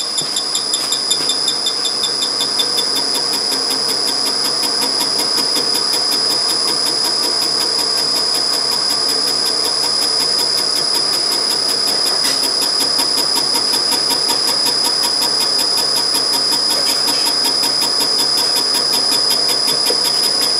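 Bridgeport milling machine running a boring head, its boring bar plunge-cutting a valve relief pocket into a Predator 212 Hemi aluminium piston. The sound is a steady high-pitched whine with an even, rapid pulsing of about four beats a second.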